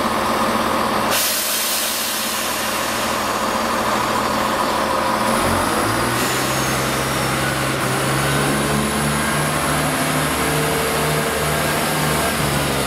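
Diesel multiple unit's underfloor engine idling, then a loud hiss about a second in. From about five seconds in the engine note rises and pulses as the train pulls away.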